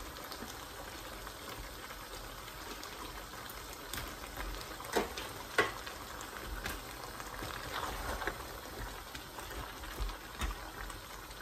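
A pot of stew bubbling at a simmer on the stove, with a few sharp knocks as pieces of fish go in and are stirred with a wooden spoon.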